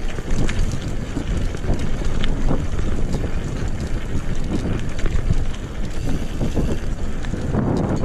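Wind buffeting the microphone of a handlebar-mounted GoPro 5 on a moving mountain bike, over a steady low rumble of tyres on a rough road and frequent small rattles and knocks from the bike.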